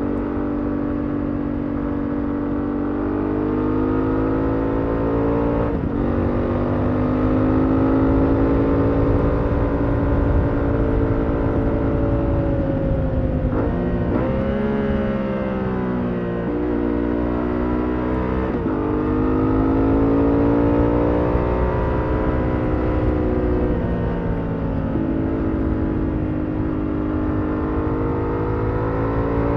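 BMW F 900 XR's parallel-twin engine through its stock exhaust, heard onboard at road speed. The engine note rises and falls with the throttle, dipping and climbing again a few times, over a steady rush of wind on the microphone.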